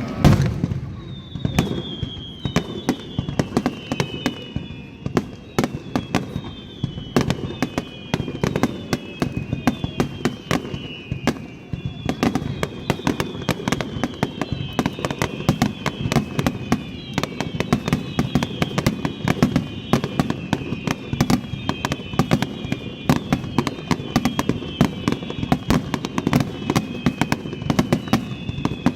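Aerial fireworks going off in a rapid, continuous barrage of bangs, the loudest just at the start. Overlapping high whistles run throughout, each falling in pitch.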